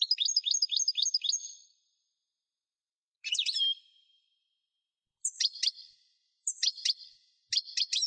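European goldfinch singing: quick, high twittering phrases of chirps and trills, one long phrase at the start and then four shorter bursts with pauses of about a second between them.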